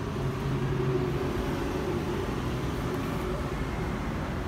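Steady low mechanical rumble with a faint pitched drone, like a running engine.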